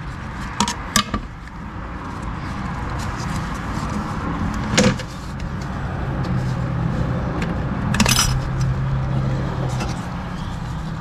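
Metal parts and a hand tool clicking and scraping inside a 42RE automatic transmission case as a snap ring is worked out. There are a few sharp clicks near the start, one about five seconds in and a cluster near eight seconds, over a steady low hum.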